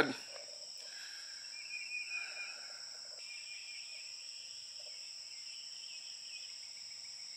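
Insects chirring in a steady, high-pitched chorus, with a few lower chirps about two seconds in.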